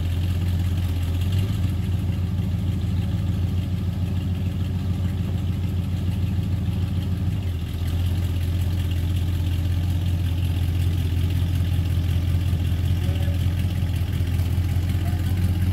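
1969 Dodge Charger R/T's V8 engine idling steadily, with a strong low drone.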